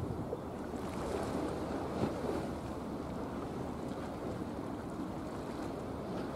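Steady wind rumbling on the microphone over the wash of sea water, with no horn or other distinct sound.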